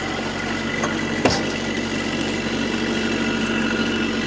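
Rippa R32 mini excavator's diesel engine running steadily with a high steady whine over it, and a single sharp clank about a second in.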